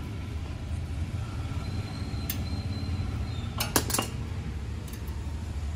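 Sharp metallic clinks and taps as brake pads and caliper parts are handled and fitted at a car's front disc brake, the loudest a quick cluster a little past halfway, over a steady low hum.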